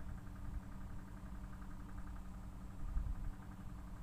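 A steady low motor hum with a rumble underneath and a faint, fast flutter higher up.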